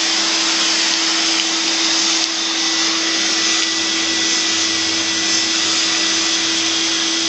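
Vacuum cleaner running steadily, a constant rushing noise with a steady hum under it.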